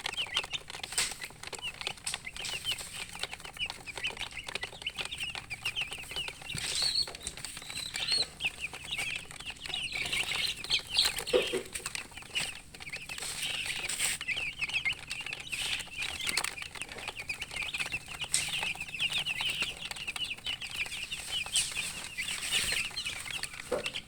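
Baby chicks peeping without a break, many short high cheeps overlapping, with scattered light clicks and one short lower call near the middle.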